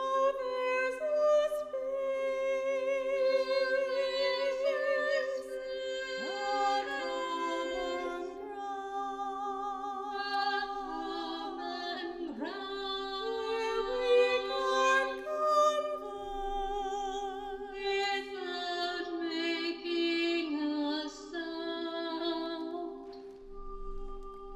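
Choir singing: a solo female voice carries a melody with vibrato above steady held low notes, with a couple of sliding notes along the way.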